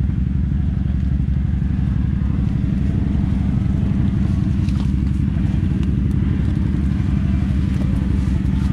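Polaris Ranger side-by-side's engine running steadily at low, even revs.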